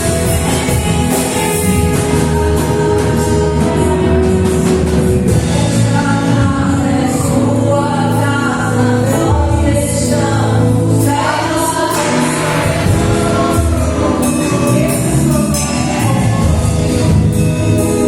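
Gospel worship song performed by a band: several voices singing together over bass, drums and cymbals.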